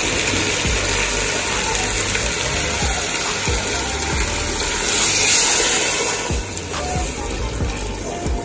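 Warm, seasoned water poured from a pan onto browned oxtail pieces in an aluminium pressure-cooker pot, a steady splashing pour that gets loudest about five seconds in.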